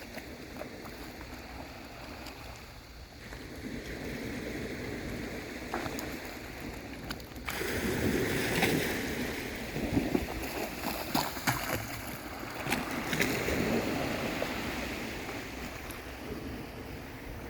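Sea surf washing onto a beach: a steady wash of waves that swells to its loudest from about eight seconds in, with several peaks, then dies away toward the end.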